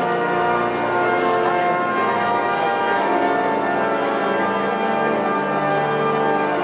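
Walcker pipe organ playing held chords, the lower notes moving to new pitches about a second and a half in and again about five seconds in.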